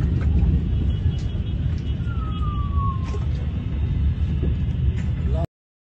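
Loud, dense low rumble of outdoor noise, with a short falling tone about two seconds in. It cuts off abruptly shortly before the end.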